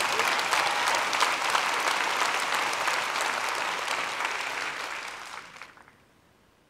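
Large audience applauding, the clapping dying away about five seconds in.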